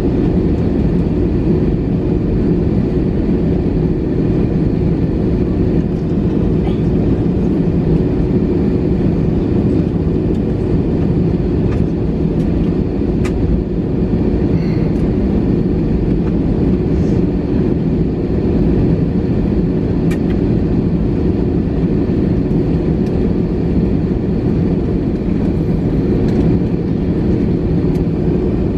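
Airbus A321-211 jet engines (CFM56-5B) heard inside the cabin from a rear window seat: a steady, even engine roar with a constant low hum, its pitch neither rising nor falling.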